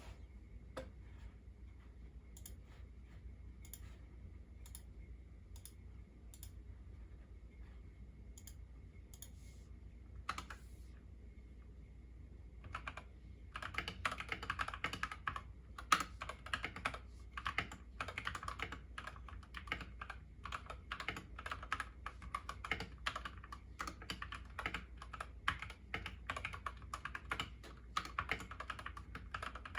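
Mechanical keyboard typing on a YUNZII KC68 with lubed Gateron Yellow switches and XDA keycaps. Only scattered single keystrokes for nearly half the time, then steady fast typing from about halfway through.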